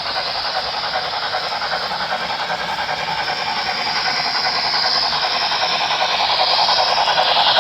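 Model train rolling along the layout's track, its wheels and running gear making a steady rushing, rattling noise that grows gradually louder as it comes closer.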